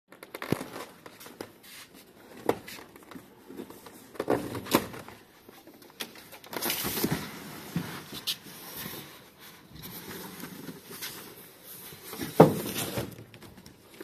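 Cardboard shipping carton being lifted up off a washing machine: scattered knocks and thumps of the box with stretches of cardboard scraping and rustling. The loudest thump comes near the end.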